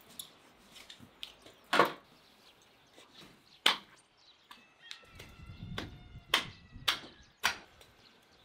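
A cleaver chopping into a raw lamb carcass: five sharp chops, one about two seconds in, one near four seconds, then three in quick succession near the end. A bird calls briefly in the background during the later chops.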